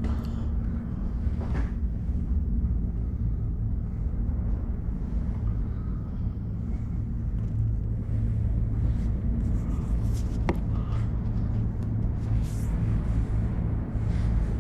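Steady low rumble with a constant hum inside a moving tri-cable gondola cabin riding its cables, with a single sharp click about two-thirds of the way through.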